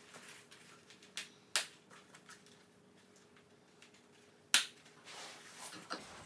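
A child's hockey helmet being adjusted and fastened makes a few sharp clicks. The loudest click comes about four and a half seconds in.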